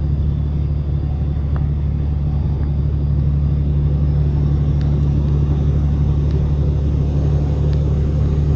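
Semi truck's diesel engine and road noise droning steadily inside the cab while cruising at highway speed, with a deep, even hum.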